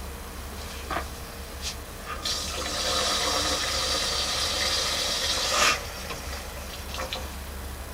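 Water gushing into the cleared drain line for about three and a half seconds, then cutting off suddenly, as the line is tested for flow after cabling. A steady low hum runs underneath.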